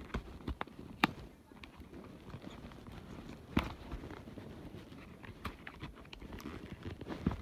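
Irregular light clicks and knocks of a plastic model subway car and its packaging being handled, with the sharpest knocks about a second in and about halfway through.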